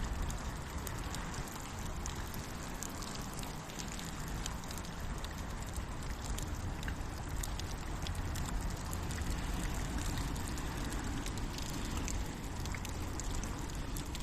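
Steady rain falling, with a campfire crackling in it: a constant hiss of rain dotted with many small sharp pops and drips.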